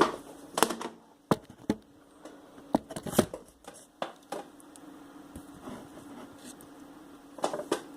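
Scattered sharp clicks and light taps from a reassembled skate bearing and its small metal parts being handled, with a cluster of clicks near the end.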